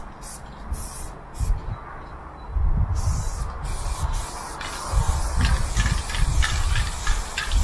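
Aerosol spray-paint can hissing in short bursts as paint is sprayed onto a freight car: a few longer sprays at first, then a quicker series of short sprays from about five seconds in. A low, uneven rumble runs underneath.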